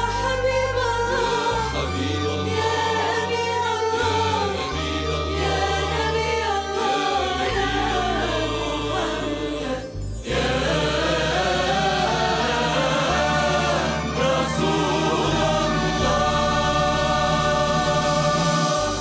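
An Arabic choral song performed live by a female lead singer and choir with an orchestra of strings, qanun and percussion. The music breaks off for a moment about halfway through, then resumes.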